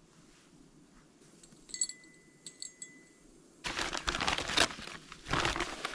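A short metallic ring with a couple of light clinks, then a paper bag rustling and crinkling loudly as it is handled and opened, from a little over halfway through.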